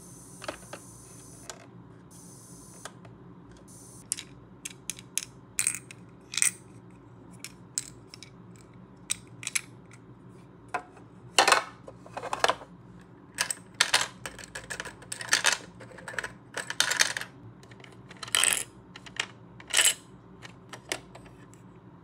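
Hard plastic clicks, taps and knocks as the parts of a toy refrigerator, its miniature plastic food pieces and a small plastic cup are handled and set down. Sparse at first, then busier from about four seconds in, with the loudest knocks around the middle and near the end.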